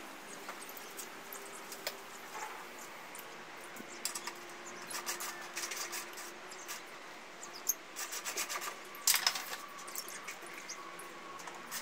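Ratchet wrench clicking in short runs of rapid clicks as bolts on a steel scooter side-box bracket are tightened, with the loudest run a little past halfway.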